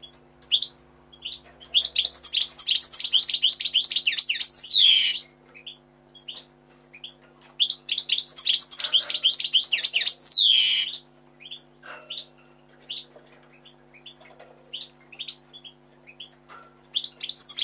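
European goldfinch singing: two long bouts of rapid, high twittering, each about three seconds, with single chirps in between. A faint steady hum runs underneath.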